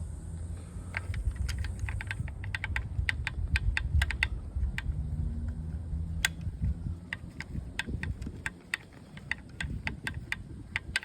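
Quick, irregular light metallic clicks from a hand tool working loose the crankcase bolts of a 2005 Yamaha YZF-R6, over a low wind rumble on the microphone.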